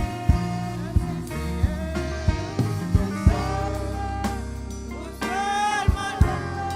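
Gospel worship music: a voice singing a wavering melody over a band with steady bass notes and regular drum beats.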